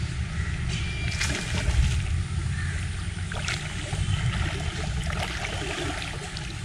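Fast-flowing river water sloshing and swirling around a wading angler's body, over a steady low rumble, with a few small splashes between one and two seconds in and again around three and a half seconds.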